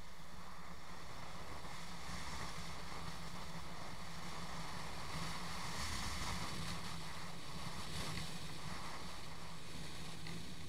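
Vehicle engine running at a steady hum on the move, under wind rushing over the microphone.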